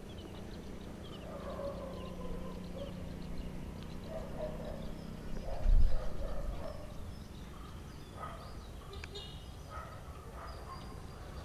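Scattered bird calls over a low steady hum that cuts off about halfway, followed at once by a brief loud low thump.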